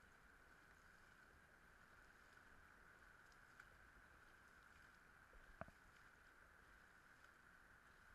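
Near silence: a faint steady hiss with one faint click about five and a half seconds in.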